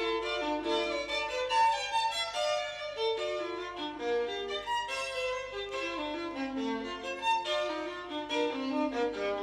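Violin music: a continuous melodic line of short and held notes.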